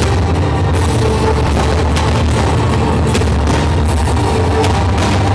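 Loud music plays throughout, with a few sharp cracks now and then.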